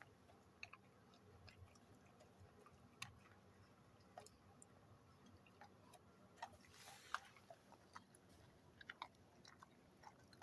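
A dog chewing a homemade dog treat: faint, irregular crunches and mouth clicks.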